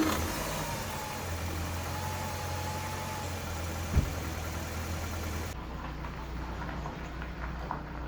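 2004 Nissan Sentra Spec V's four-cylinder engine idling steadily, with a single sharp thump about four seconds in. It is a tired engine that the owner says has very little power and smokes heavily.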